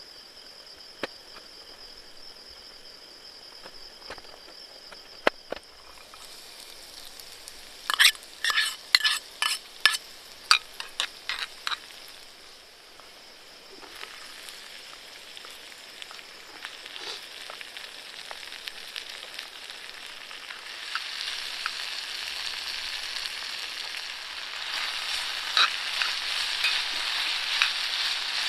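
A quick run of sharp clicks, then food frying in a pan, its sizzle growing steadily louder. A steady high-pitched tone sounds for the first few seconds.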